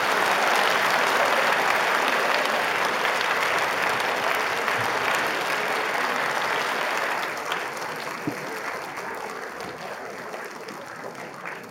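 Audience applauding at the end of a band piece: loud clapping that eases off from about seven seconds in and keeps fading.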